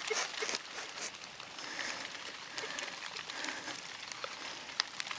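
Light rain falling steadily on grass and soil. A few soft scrapes in the dirt come near the start as a hole is dug by hand, and there is a sharp click near the end.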